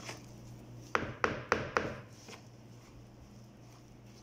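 Spoon knocking four quick times against a plastic mixing bowl, about a quarter second apart, about a second in, amid soft stirring of crumbly semolina dough. A low steady hum runs underneath.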